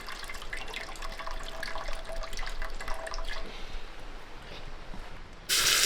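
Water splashing and dripping in small irregular splashes, as when food is washed or handled in a basin of water. About half a second before the end, a sudden loud sizzle starts as food goes into hot oil.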